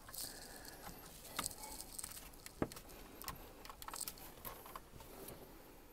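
Faint scattered clicks and rustling from a gloved hand handling a power cord's plug at a wall outlet.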